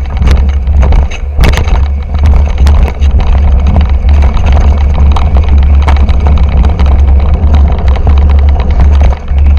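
Mountain bike, a 2008 Intense Tracer full-suspension bike, rattling and clattering at speed over rough ground, with many sharp knocks from the tyres, chain and frame. Heavy wind rumble on the action camera's microphone runs underneath.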